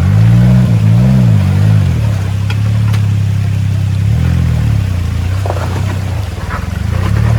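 Suzuki Jimny JA11's 660 cc three-cylinder turbo engine running at low speed and revving up and back down in short blips, several times, under load, with scattered knocks and clicks.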